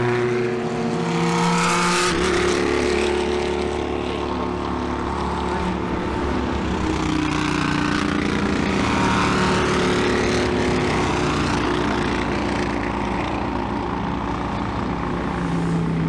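A recovery truck's engine running steadily, stepping up in speed about two seconds in and then holding.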